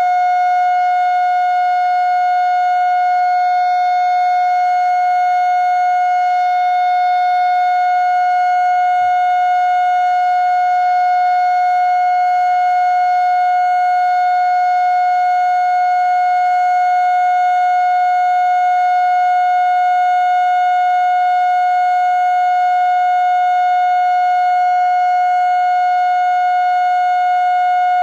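Darley Model 2 tornado siren sounding loud and steady, holding one unchanging high tone with no rise or fall. This is the steady alert signal of a tornado warning siren test.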